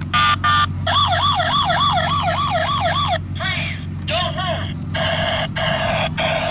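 Electronic siren sound effect from a battery-powered toy police car or ambulance. It opens with two short beeps, then a fast wail rising and falling about four times a second, then shifts to other warbling and pulsing siren patterns.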